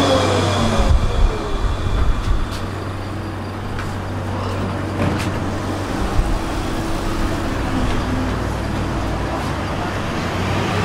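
Electric tram slowing to a halt, its motor whine falling away in the first second, then standing with a steady low electrical hum. A few sharp clicks and knocks come in the first couple of seconds.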